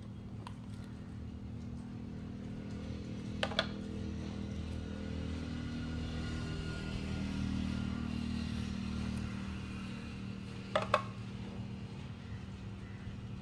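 An engine running steadily, swelling a little in the middle, with two short sharp clicks, one a few seconds in and one near the end.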